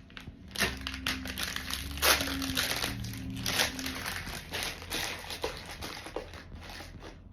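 Plastic packaging crinkling and rustling as a hard drive is unwrapped by hand, in irregular bursts of crackle.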